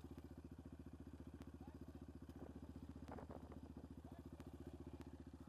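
Yamaha Raptor 700 quad's single-cylinder four-stroke engine idling, a faint, even rapid beat.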